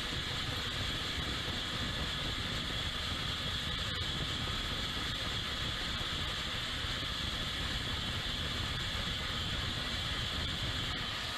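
CNC milling machine running an adaptive roughing cut in hardened steel: a steady machining noise with a constant high-pitched whine over it.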